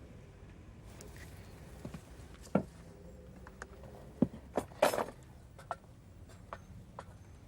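Scattered light clicks and knocks, like small hard objects being handled, with one louder, longer clatter about five seconds in.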